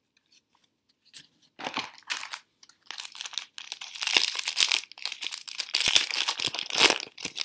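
Wrapper of a 2013 Topps Mini baseball card pack being torn open and crinkled in the hands: dense, irregular crackling that starts about a second in and is heaviest in the second half.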